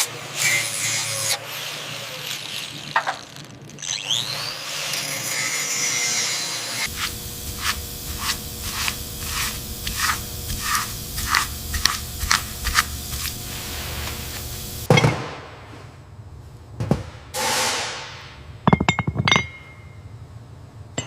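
Workshop tool noise on metal. First a rough scraping or grinding, then a run of evenly spaced strikes, about one and a half a second, over a steady hum. Near the end come a few separate sharp knocks.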